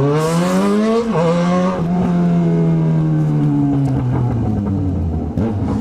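Yamaha XJ6's inline-four engine through an aftermarket 4-into-1 exhaust, accelerating hard. The pitch climbs, drops at a gear change about a second in, then holds and slowly falls.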